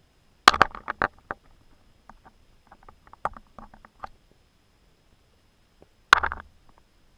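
Sharp clicks and knocks on an underwater camera's waterproof housing in an ice-fishing hole: a quick rattling cluster about half a second in, scattered faint ticks after it, and a second rattling cluster near the end.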